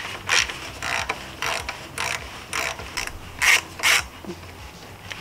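Hand ratchet with a 6 mm Allen (hex) bit backing out a motorcycle's rear brake master cylinder mounting bolt, the pawl clicking in short rasps on each return stroke, about two a second, stopping about four seconds in.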